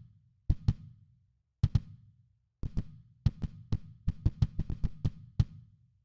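Isolated kick drum track playing back: about sixteen deep thuds, each with a sharp beater click, in an irregular rock pattern with quick pairs and a fast run of hits about four seconds in.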